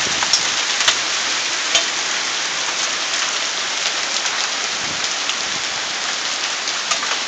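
Hailstorm: hailstones pelting the roof and yard in a steady, dense hiss, with scattered sharp ticks from single stones striking hard.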